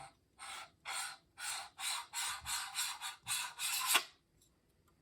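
Camera body being screwed onto an off-axis guider's threaded adapter: about eight short scraping rasps, roughly two a second, as the threads are turned by hand. The last rasp is the longest, then the turning stops.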